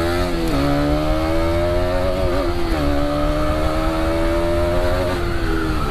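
KTM Duke 200 BS6's single-cylinder engine accelerating through the gears. Its exhaust note climbs in pitch and dips at each shift, three times. The silencer has had holes drilled in it, which gives a louder exhaust with more bass, like the older BS4 model.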